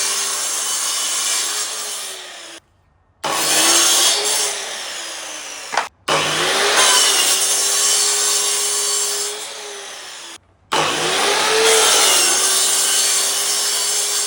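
Electric power saw cutting through plywood: long runs of motor hum with the rasp of the blade in the wood. The motor rises to speed at the start of each run and winds down at its end, and the sound cuts out abruptly three times, about 2.6, 6 and 10.6 seconds in.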